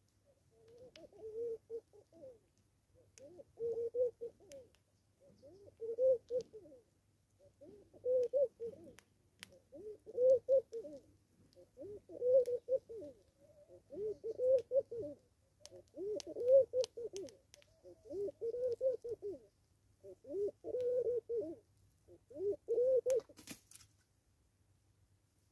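A dove cooing: a phrase of several low coos repeated about every two seconds, eleven times over.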